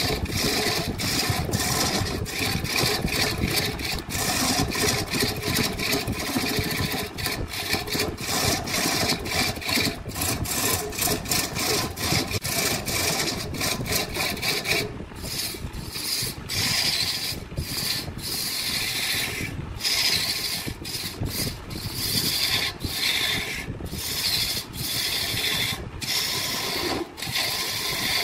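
Wood being scraped by an abrasive hand tool such as a rasp or file. The scraping is continuous and choppy at first, then falls into separate strokes about once a second in the second half.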